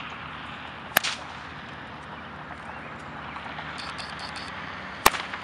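Long braided whip cracking twice, about four seconds apart: each one a single sharp snap.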